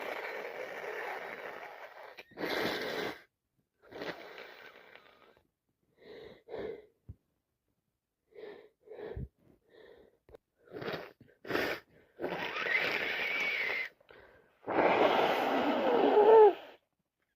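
A person with a cold and allergies sneezing, with gasping breaths and short sniffs between the sneezes. The wet sneezes come as separate bursts, the longest and loudest near the end with a voiced cry in it.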